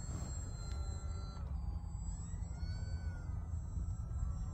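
Electric motor and propeller of a Volantex Saber RC plane whining in flight, its pitch slowly rising and falling as the throttle and distance change, over a low wind rumble. The plane is badly out of trim at this point.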